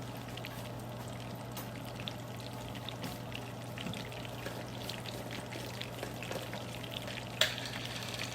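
Melted butter sizzling in a hot pan, a steady hiss with small crackles. A single sharp knock near the end, louder than the frying.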